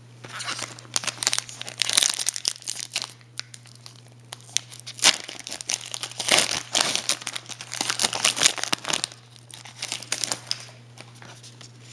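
Shiny foil wrapper of an Upper Deck Champ's hockey card pack being torn open and crinkled by hand, a run of crackling rustles that dies down about ten and a half seconds in.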